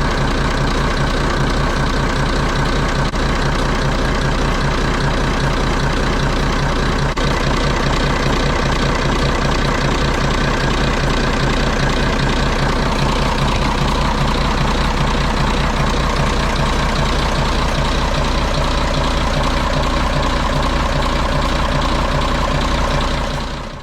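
Dutch barge's inboard engine idling steadily with an even low beat, fading out near the end.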